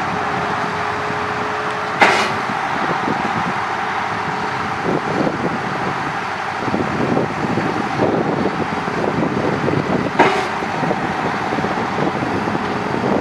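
Liebherr A900C wheeled excavator's diesel engine running under load with a steady hydraulic whine as the boom and arm are worked. A lower whine stops about two seconds in, and there are two sharp knocks, one at that moment and one about ten seconds in.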